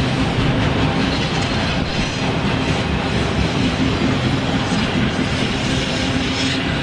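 Freight train of autorack cars rolling past: a steady rumble and clatter of steel wheels on rail.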